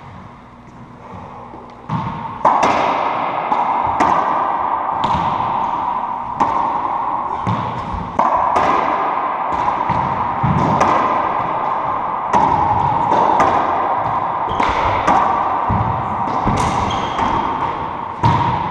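A racquetball rally: the rubber ball smacking off racquets, walls and the hardwood floor, a sharp hit every second or so. Each hit rings on in the enclosed court. The hits begin about two seconds in, after a short lull.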